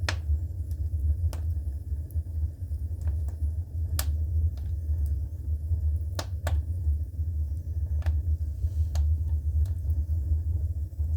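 Wood fire crackling in the firebox of a Clayton add-on wood furnace, with sharp pops every second or two, the strongest about four and six seconds in, over a steady low rumble.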